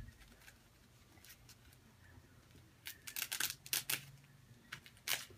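A doll's diaper being unfastened and pulled off: a run of short rustling, ripping sounds about three seconds in, then two more near the end.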